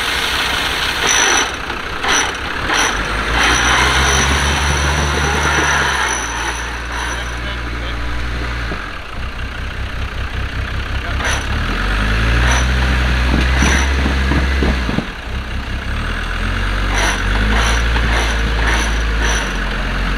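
Off-road Land Rover Defender engine running, its revs stepping up, held for a few seconds and dropping back several times, with mechanical clicks and rattles over it.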